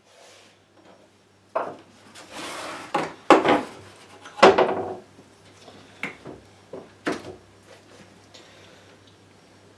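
Tools being handled on a wooden workbench: several loud knocks and short scraping rubs, then lighter clicks and rattles of small metal pieces in a plastic tool case.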